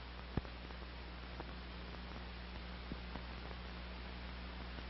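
Steady low hum and hiss with a few faint clicks, the clearest about half a second in: the background noise of an old film soundtrack between lines of narration.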